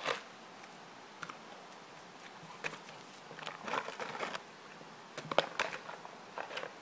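A dog's food bowl knocking and scraping on gravel as a Saint Bernard puppy noses and paws it around, giving scattered light clicks in small clusters, busiest in the second half.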